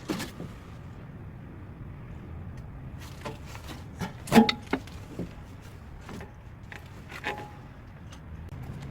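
Low steady vehicle rumble with a series of separate knocks and clinks, the loudest about four and a half seconds in with a brief metallic ring.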